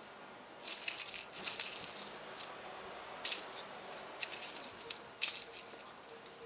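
Feather-wand cat toy jingling as it is shaken, in several quick bursts with short pauses between them.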